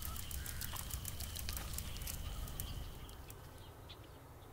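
Outdoor ambience: rapid, irregular high-pitched clicks and chirps over a low rumble, dying away about three seconds in.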